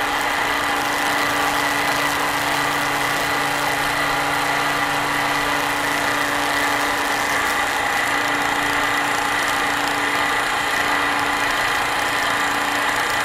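Milling machine running steadily with a constant hum and high whine as its end mill takes a light cut around the pivot of a folding-knife liner, the workpiece being turned on a rotary table. A lower hum drops away about halfway through.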